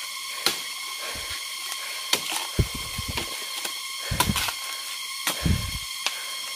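Machete blade chopping at bamboo stems: about six sharp knocks, some followed by the creak and rustle of the struck bamboo. Under it runs a steady high-pitched drone.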